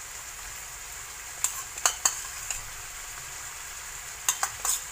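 Sliced chicken sizzling steadily in a frying pan, with a metal spoon clicking against the pan and bowl a few times, in a cluster a little after a second in and again near the end, as sauce is spooned in.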